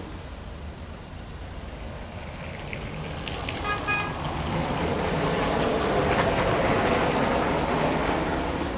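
Steady low traffic rumble. About four seconds in, a short horn toot sounds, and then the noise of a passing vehicle swells, loudest a couple of seconds later.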